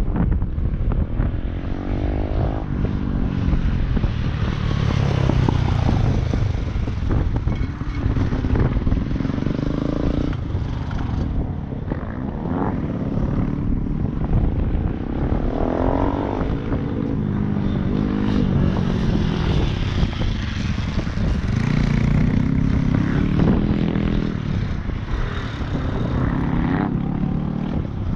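Several motorcycles riding a low-speed cone course, their engines repeatedly revving up and dropping back in pitch, over steady wind rumble on the microphone.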